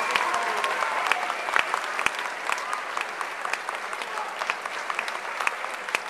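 Large audience applauding, with a few cheers and shouts near the start, slowly dying down.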